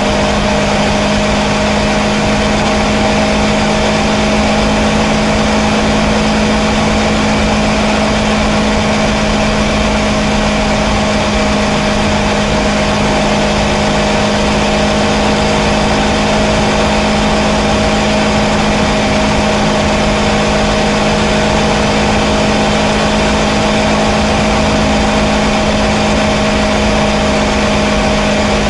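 Kawasaki Versys 650's parallel-twin engine running at a steady cruising speed, one even note that holds without revving or shifting, over a constant hiss of wind and road noise.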